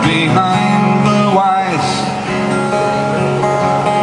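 A man singing with his own acoustic guitar in a live solo performance.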